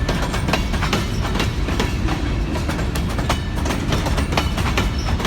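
Cars of a freight grain train rolling past at close range: a steady low rumble with rapid, repeated clacks of wheels over rail joints.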